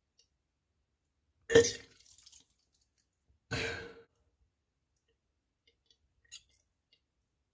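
A nauseous person making two short throat sounds, coughs or burps, about two seconds apart, the first the louder; a faint click near the end.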